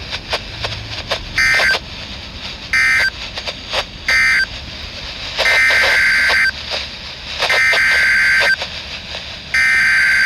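Emergency Alert System SAME data bursts over radio static: three short end-of-message bursts, then three longer header bursts of about a second each, marking the end of one warning and the start of the next. Crackle and clicks of static fill the gaps between the bursts.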